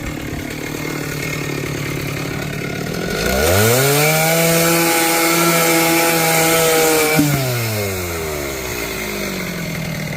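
Chainsaw engine running at low speed, then revved up to full throttle about three seconds in and held there for about four seconds while cutting through a wooden beam. It then falls back to low speed.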